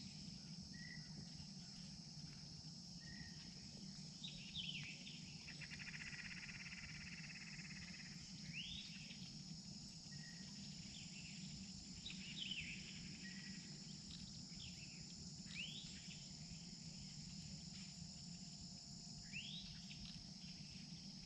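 Steady, quiet chorus of insects such as crickets, with a bird giving short arching calls every few seconds and a low steady hum underneath.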